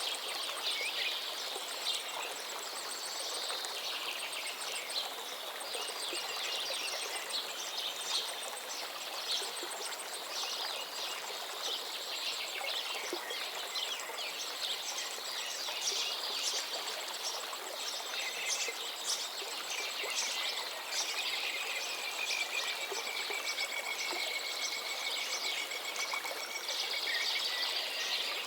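Running water, a stream or small waterfall, with many small birds chirping and twittering over it. Near the end one long, steady, drawn-out whistled note is held for several seconds.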